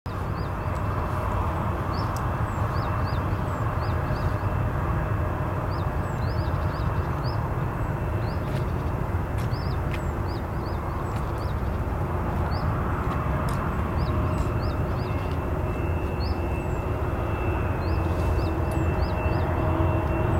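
Airbus A340-642's four Rolls-Royce Trent 556 turbofans on final approach: a steady low rumble that slowly grows louder, with a faint whine coming in about three-quarters of the way through. Short high chirps come and go over it.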